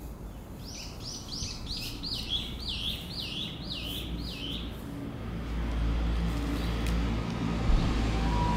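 A small songbird singing a fast run of about ten repeated notes, each sliding down in pitch. In the second half a low rumble builds beneath it.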